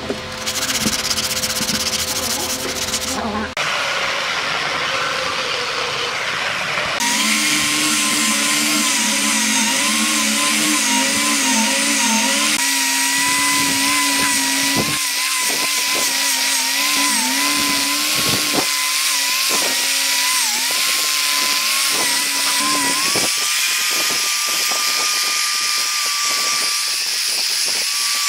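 Handheld angle grinder fitted with a sanding pad, running while it sands the bare wood of a log bench. Its motor whine dips briefly in pitch now and then as the pad bears down on the wood.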